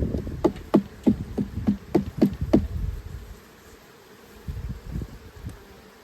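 Honeybees buzzing close to the microphone in a quick run of short buzzes, about three a second, in the first half, then quieter.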